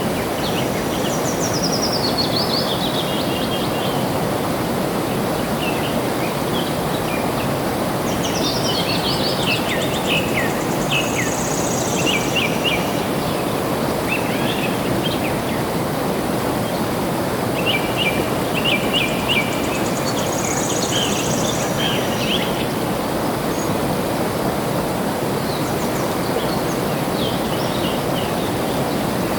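Steady rush of flowing water, with small birds chirping and trilling over it in several short bouts.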